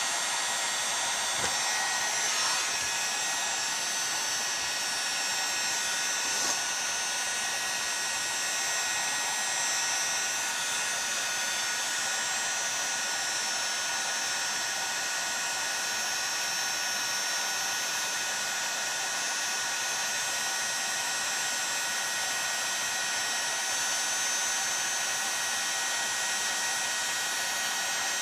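Electric heat gun running steadily, a constant blowing rush with a faint motor whine, while it heats an aluminium chainsaw crankcase so the bearing and oil seal can be fitted. Two light knocks come about a second and a half and six and a half seconds in.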